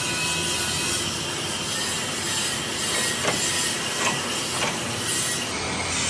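Motorised sheet-metal rolling machine running steadily as its rollers curl a steel sheet into a tube. A few sharp metallic clicks come around the middle.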